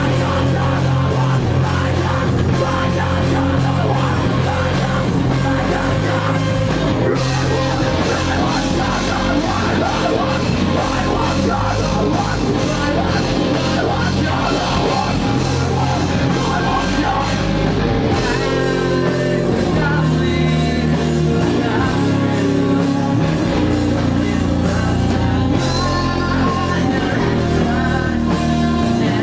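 Live rock band playing loud: electric guitars, bass and drums with a vocalist into the microphone. About two-thirds of the way through, the music moves into a new section with clearer held notes.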